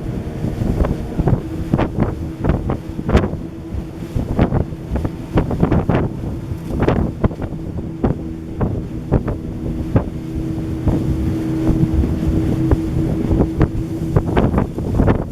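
Motorboat engine running steadily at speed, with wind buffeting the microphone in repeated gusts.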